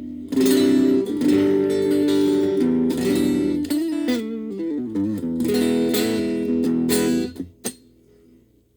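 Gaban Les Paul-type electric guitar played through a VOX Soundbox Mini amp: strummed, ringing chords, a short run of single notes in the middle, then more chords, cut off about seven seconds in, leaving a faint amp hum.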